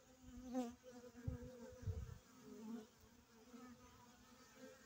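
Honeybees buzzing in flight around a hive entrance, the pitch of the buzz wavering as individual bees pass close by. Two brief low rumbles about one and two seconds in.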